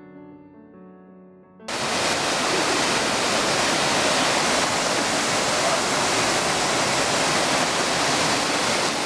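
Quiet piano music, cut off about two seconds in by the loud, steady rush of a small waterfall pouring over boulders in a rocky mountain creek.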